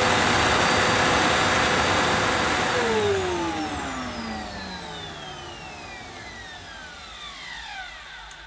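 Electrolux Cyclonic Lite bagless upright vacuum cleaner running with a steady whine, then winding down about three seconds in, its pitch falling as the motor and brush roll coast to a stop.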